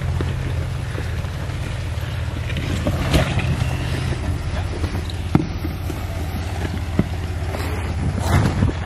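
Off-road 4x4's engine running steadily at low revs, crawling, with a few sharp knocks about three, five and seven seconds in.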